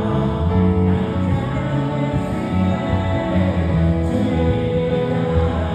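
Live worship band music: a band of keyboard, electric guitar, bass guitar and drums playing steadily, with sustained chords over a moving bass line.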